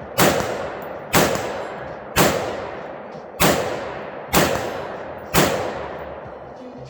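A rifle fired in steady semi-automatic shots, six in about five and a half seconds, each shot sharp and trailing off in a long echo.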